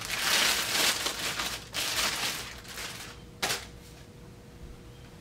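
Plastic packaging bag crinkling and rustling as an RC radio transmitter is unwrapped by hand, with one sharp click about three and a half seconds in.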